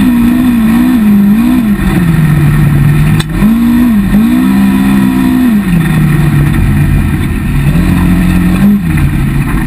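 Polaris RZR side-by-side's engine heard from the driver's seat while driving a trail, the throttle opening and closing so the engine note rises and falls several times. A single sharp knock about three seconds in.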